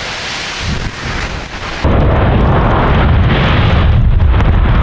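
Demolished concrete power-station chimney collapsing: a heavy crashing rumble of falling masonry and debris. About two seconds in it switches abruptly to a louder, deeper rumble.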